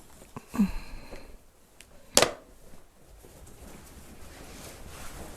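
Two knocks: a dull thump just over half a second in, and a sharp, loud knock about two seconds in.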